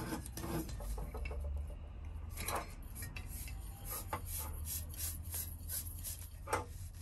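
Hands handling a small green propane cylinder fitted with a screw-on adapter: rubbing and scattered light clicks as the adapter is turned on the valve and the cylinder is picked up and turned over.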